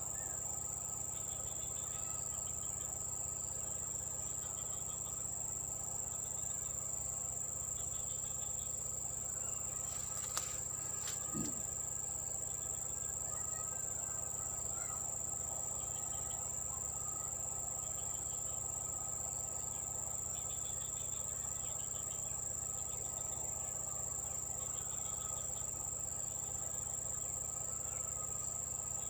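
Steady, high-pitched drone of insects in the vegetation, with shorter chirps coming and going every few seconds. A single brief click sounds about ten seconds in.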